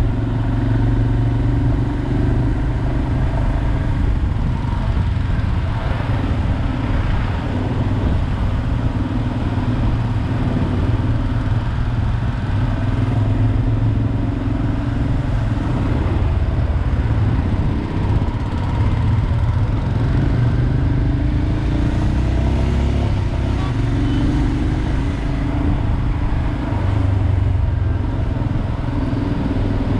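Royal Enfield Himalayan's 411cc single-cylinder engine running steadily under way, its pitch rising and falling a little with the throttle.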